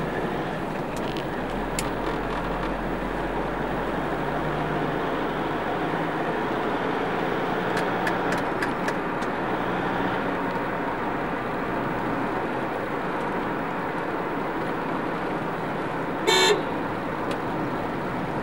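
Steady road and engine noise of city traffic heard from inside a moving car, with one short vehicle horn blast near the end, the loudest sound.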